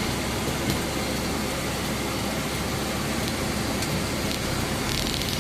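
Steady noise inside a moving car's cabin, with the engine, the road and the heater fan all running, and a few faint ticks.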